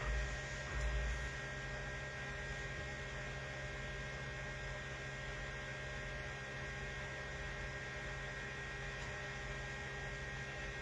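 Steady electrical mains hum with a thin high whine, and two low thumps in the first second or so.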